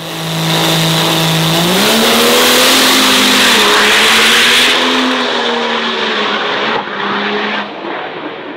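Drag racing vehicle under full power down the strip. The engine note steps up in pitch about two seconds in, is loudest for the next few seconds, then tails off near the end.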